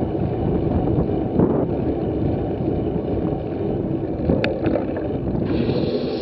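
Wind rushing over the microphone of a camera riding on a moving bicycle, with the low rumble of the tyres rolling on asphalt. The noise is steady, easing slightly as the bike slows.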